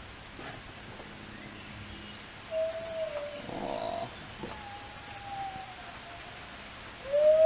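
Otter giving a few thin, drawn-out whining calls: a short one about two and a half seconds in, a longer one that slowly falls in pitch in the middle, and a louder one near the end, with a brief rustle in between.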